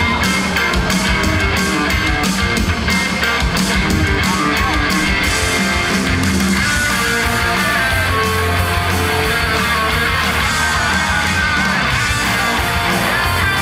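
Upbeat idol-pop song with electric guitar and a steady drum beat, played loud for a stage dance performance.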